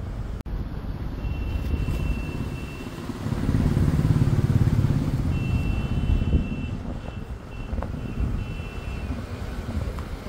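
Fully loaded truck on the move: a steady engine and road rumble that swells about three and a half seconds in. A thin, high beeping tone sounds twice over it, once for about two seconds and again in broken pieces later on.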